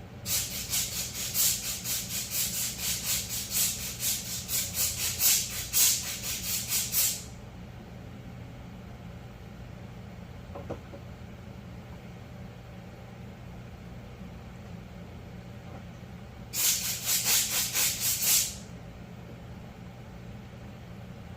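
Compressed-air blow gun hissing in pulsing spurts for about seven seconds, then again for about two seconds near the end, blowing debris off a drill bit. A steady low hum runs underneath.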